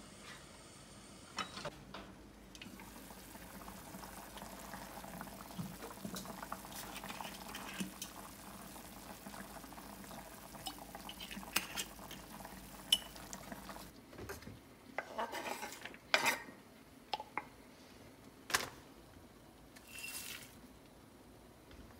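Kitchen cooking sounds: a pot on a gas hob giving a faint steady bubbling, then a run of sharp clinks and knocks of pots, lids, dishes and utensils being handled.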